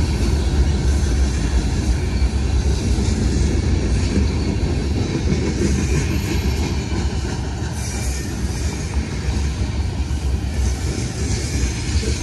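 Freight train cars rolling past on the track: a steady rumble of steel wheels on rail.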